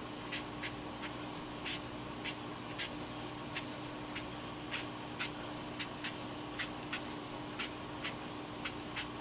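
Tombow brush-tip marker flicking short shading strokes on cardstock: light scratchy ticks at an irregular pace, about two a second.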